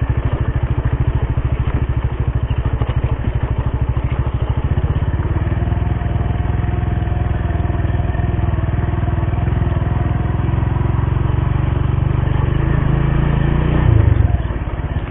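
Motorcycle engine running while riding along, with a rapid low pulsing that smooths out about five seconds in. The sound swells briefly near the end.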